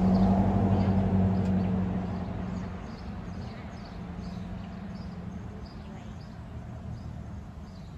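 Low engine hum of a vehicle on the road, loudest at the start and fading away over the first three seconds, with faint bird chirps throughout.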